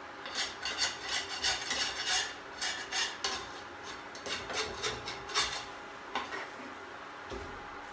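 Metal spatula scraping across a pan in repeated quick strokes, working loose a ragi pesarattu that has stuck and broken. The strokes come two or three a second, then thin out to a few scattered scrapes in the last couple of seconds.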